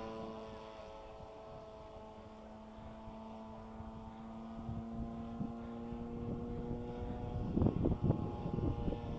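Fuji Imvac 34 cc two-stroke gas engine of a quarter-scale RC Piper Cub in flight, a steady propeller drone that fades a little and then grows louder as the plane comes back. Wind rumbles on the microphone near the end.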